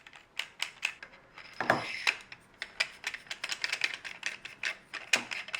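Rapid small clicks and scrapes of metal pistol parts being handled as a silencer is fitted onto a pistol's extended barrel.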